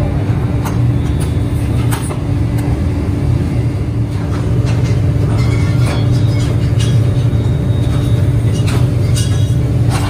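Steady electric hum of a Toyo die-casting machine running, with scattered sharp metallic clicks and clanks.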